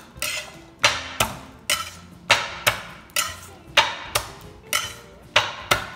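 Garlic cloves being smashed with the flat of a knife blade on a cutting board: about a dozen sharp knocks, roughly two a second.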